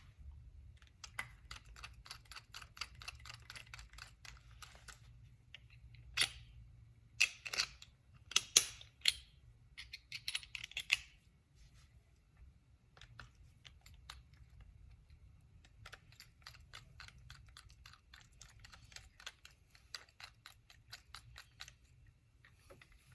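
Rapid small clicks of screws being driven and tightened into the metal housing of an Andis Master clipper, with a few louder knocks of metal parts between about six and eleven seconds in.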